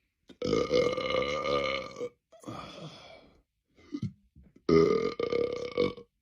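A man burping: two long, loud belches about four seconds apart, the first trailing off into a quieter one.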